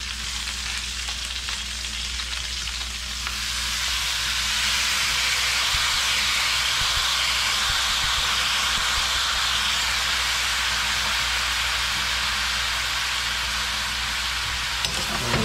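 Cajun sauce poured into a hot stainless-steel pan of Dungeness crab, sausage and potatoes, sizzling. The sizzle grows louder about three and a half seconds in as the sauce goes in, then holds steady over a low hum.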